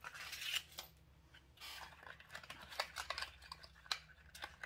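Paper and clear plastic wrapping rustling and tearing as a small advent calendar gift is unwrapped by hand, followed by a series of light clicks in the second half as small items are handled and set down.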